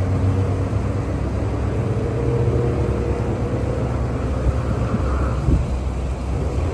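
Steady low engine-like hum and rumble, with a brief low knock about five and a half seconds in.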